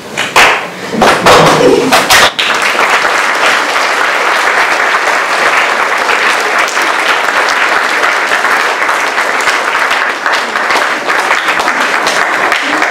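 Audience applauding: a few loud separate sounds in the first two seconds, then dense, steady clapping from many hands.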